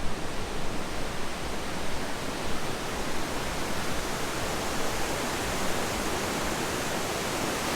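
Large waterfall rushing: a steady, dense roar of falling water.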